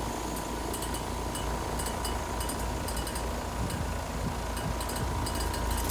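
Heat pump outdoor unit running in heating mode: steady compressor hum and fan noise with a thin steady whine and light irregular ticking. The system is running with low suction pressure, which the technician takes for an undercharge or a refrigerant leak.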